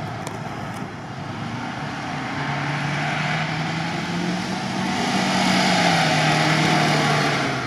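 UAZ Patriot 4x4 engine working under load as the truck ploughs through deep sand and climbs a bank. It gets louder as it comes closer and is loudest near the end.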